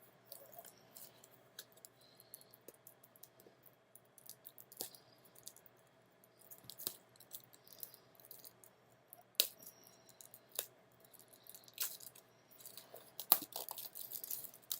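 Plastic shrink wrap being picked at and peeled off a Blu-ray box set: scattered crinkles and sharp plastic clicks, coming more often and louder in the second half.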